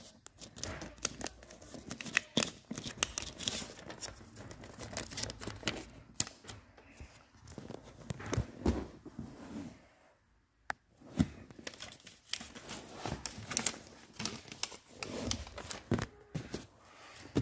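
Paper being folded and creased by hand, crackling and rustling in irregular bursts, with a short lull about ten seconds in.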